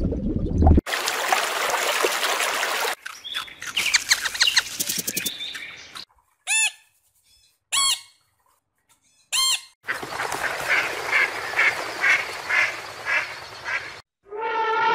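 A run of separate animal calls, goose- or duck-like: three short honking calls well apart, then a rapid series of calls at about three a second. Near the end a drawn-out, falling whinny begins.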